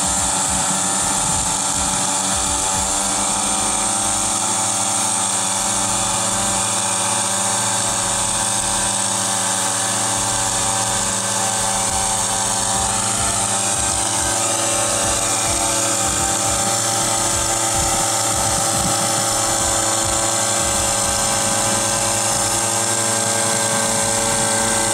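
Small two-stroke engines of motorized backpack mist-blower sprayers running steadily at high speed, blowing a foliar fertiliser spray over onion beds.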